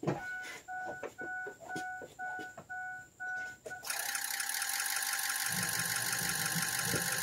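A Ford F-350's warning chime dings about twice a second. About four seconds in, the 6.0 Power Stroke V8 turbo-diesel is cranked and starts running.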